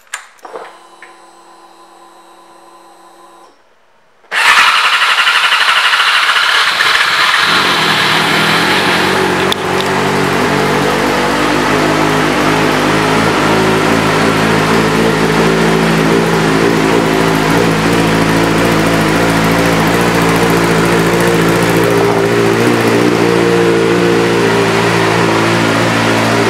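2017 Yamaha YZF-R6's 600 cc inline-four, breathing through an M4 aftermarket exhaust, starting up about four seconds in after a faint hum, then idling steadily, its pitch and loudness easing down a little over the following several seconds.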